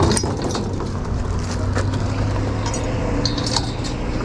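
Light metallic clinks and rattles from a steel mesh trailer ramp gate as it is raised and set upright. Under them runs a steady low hum.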